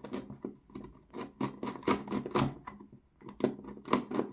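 T20 driver unscrewing the butt-pad screw of a Silverback MDR-X airsoft rifle stock, heard as an irregular run of sharp clicks and scratchy ticks from the driver and the stock parts being handled, loudest about two seconds in.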